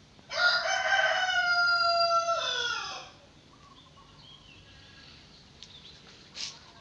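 A rooster crowing once, a single call of nearly three seconds that holds its pitch and then drops away at the end.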